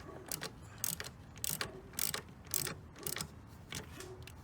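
Ratchet wrench clicking in short back-and-forth strokes as the clamp on the car battery's negative terminal is tightened.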